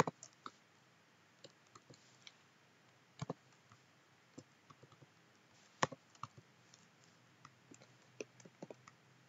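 Computer keyboard being typed on: irregular, scattered key clicks, a few of them louder, about three and six seconds in.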